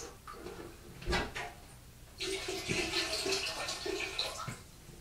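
Water rushing and splashing into a toilet bowl for about two seconds, as rinse water from a plastic hermit crab tank is dumped down the toilet. A short knock comes about a second in.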